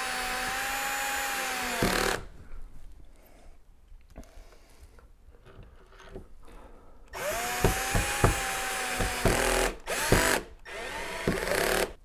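Cordless drill-driver driving the two screws that hold the smart door knob's halves together. It makes two long runs, each rising in pitch and then holding steady, then a few short bursts near the end.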